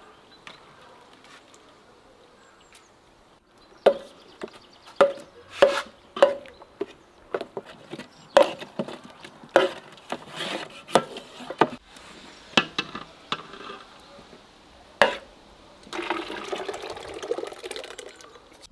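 A metal mug and a wooden spoon knocking and scraping against a metal colander as cooked peach pulp is worked through it, a long run of sharp clinks, some of them ringing. Near the end, a steady rush of peach juice being poured from a bowl into a pot.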